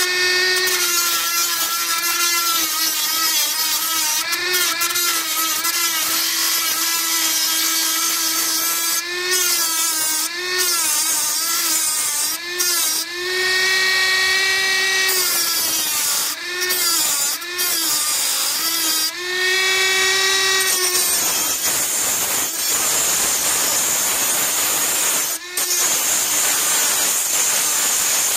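Small straight grinder with an abrasive disc grinding down the head of a steel rivet on the MG F/TF front lower ball joint, to free the joint. The motor's whine dips in pitch again and again as the disc is pressed on and eased off, with a few brief let-offs. From about two-thirds of the way in it changes to a harsher, steady grinding as the disc bites into the metal.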